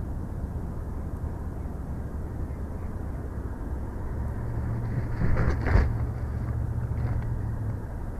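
Bald eagle flying in and landing on a stick nest: a short flurry of wingbeats ending in a loud thump about halfway through. A steady low rumble runs underneath.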